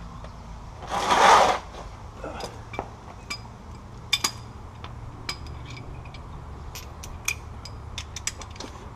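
Hand wrenches and a ratchet working the bolts of a truck's rear shock absorber: scattered metallic clicks and clinks, with a short hissing burst about a second in.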